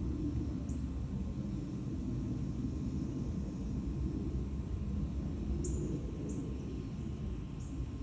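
A steady low rumble, like distant traffic or an aircraft, with a few short, high bird chirps: one near the start and three more in the second half.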